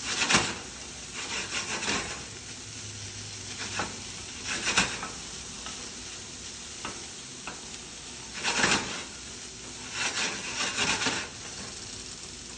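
Cauliflower rice, carrots and kimchi sizzling steadily in a frying pan, with a wooden spatula scraping and stirring across the pan in irregular strokes every second or two.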